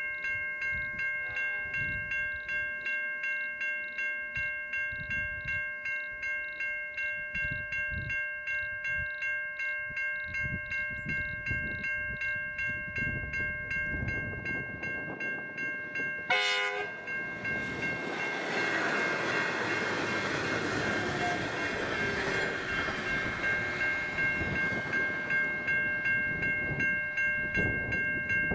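Level crossing bells ringing steadily at about two strokes a second while a V/Line Sprinter diesel railcar set approaches. About sixteen seconds in it gives one short horn blast, and then it passes close by with a rushing noise of engines and wheels on the rails.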